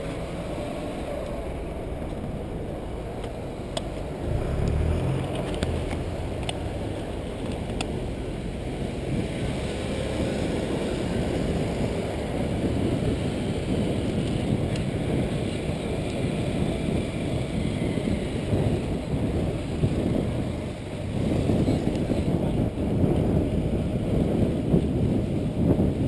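Wind rushing over a bicycle's handlebar-mounted microphone while riding beside car traffic. A heavy engine's low drone swells about four seconds in.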